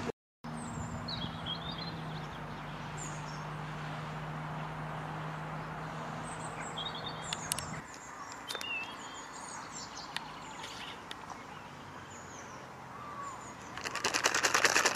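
Wild birds chirping and singing over a steady low hum that stops about eight seconds in. Near the end comes a rapid crinkling of a foil treat packet being handled.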